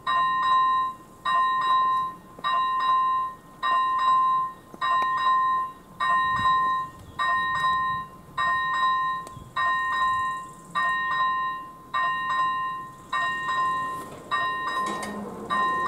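First-generation electronic warning bell of an AŽD 97 level-crossing signal, dinging about once every 1.2 seconds to warn of an approaching train. Each ding rings briefly and fades. Near the end a low hum joins in as the barrier drives start lowering the booms.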